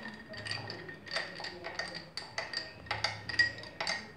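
Metal spoon stirring ice cubes in a glass of iced drink: quick clinks against the glass and ice, about four a second, each ringing briefly.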